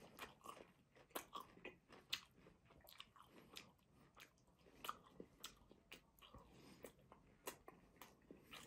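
Faint, close-miked eating sounds of grilled minced-meat kebab: irregular wet mouth clicks and smacks of chewing, with the soft sound of the meat being pulled apart by hand.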